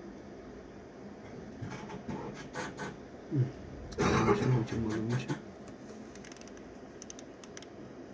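Scattered light clicks and scratching, with a short, low human vocal sound about four seconds in, then a few more clicks near the end.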